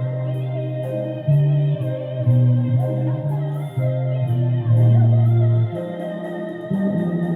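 Bass guitar playing held low notes along with a backing track, which carries drums with a steady hi-hat tick and other instruments above.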